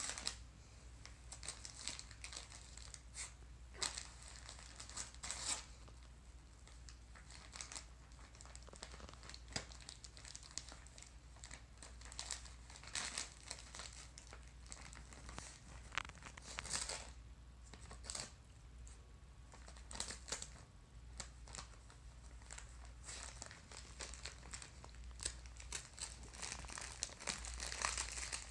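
A dog tearing and crinkling gift-wrapping paper with its mouth and paws: irregular spells of rustling and ripping paper, busier near the end.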